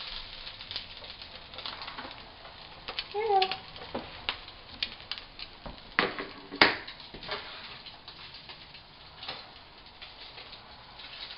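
Eggs frying in a nonstick pan, crackling, with the clicks and scrapes of a plastic spatula against the pan and a sharp knock about six and a half seconds in. A short squeak about three seconds in.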